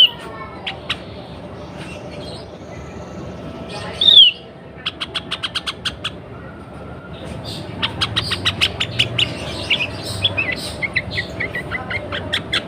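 Sooty-headed bulbul calling, given as a female in breeding condition. A loud down-slurred whistle comes about four seconds in, then a quick run of sharp ticks, then a long stretch of rapid chattering notes.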